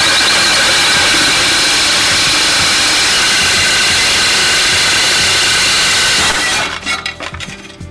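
Cordless DeWalt drill on high speed spinning a RockMaster turbo diamond dry core bit as it grinds through tile. It makes a loud, steady, gritty grinding whine, which stops about six seconds in and dies away.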